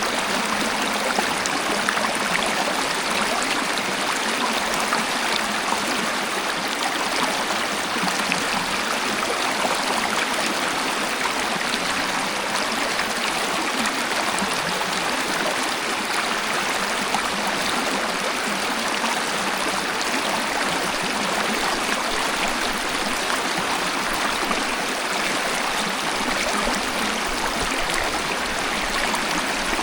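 Waterfall: falling water splashing steadily and evenly, with no breaks and almost no deep rumble.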